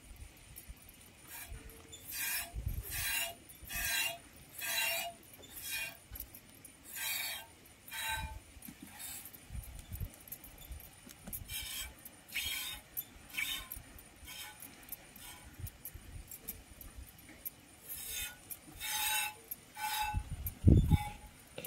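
Goat being hand-milked: milk squirting into a container in runs of short hissing squirts, about one or two a second, with pauses between the runs. A few low thumps near the end.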